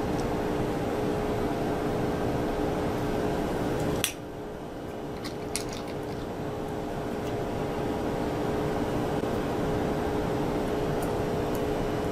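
Steady fan hum with a few faint small clicks from a small screwdriver and parts being handled while a probe's cover screw is worked out. The hum dips briefly about four seconds in.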